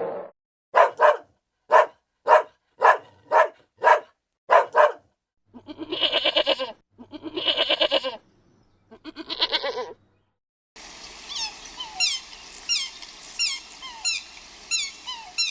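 Animal calls in three runs: about eight short, sharp barks, then three long wavering bleats of about a second each, then quick falling chirps repeating about twice a second.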